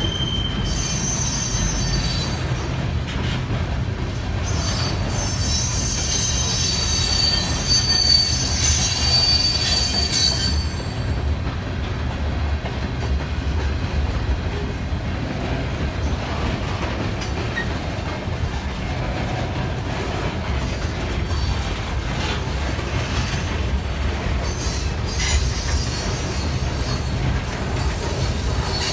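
Mixed freight train cars rolling past close by, with a steady rumble and clatter of steel wheels on rail. A high-pitched wheel squeal runs through the first ten seconds or so, then dies away.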